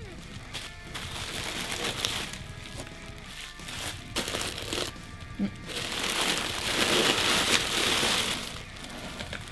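Bubble wrap and plastic packaging crinkling and rustling as it is handled and pulled out of a cardboard box, loudest in a long stretch in the second half, over soft background music.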